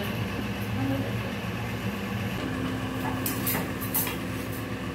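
A steady low mechanical hum, with a few short scrapes of a steel spatula pressing a paratha on an iron tawa about three and a half seconds in.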